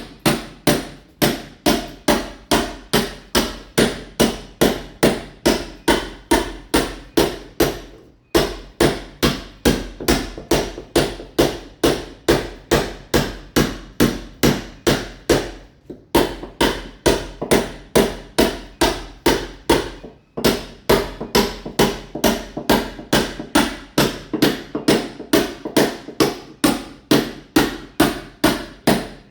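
Mason's hammer chipping a masonry wall to roughen it for ceramic tile. It strikes in a steady rhythm of about two to three blows a second, with three brief breaks.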